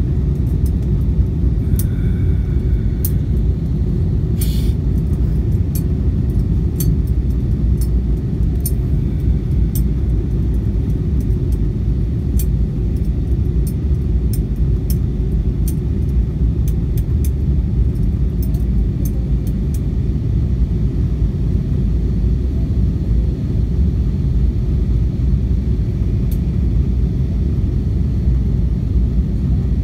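Steady low rumble inside the cabin of an Airbus A320-232 on descent: its IAE V2500 engines and the airflow over the fuselage, with faint scattered ticks in the first two-thirds.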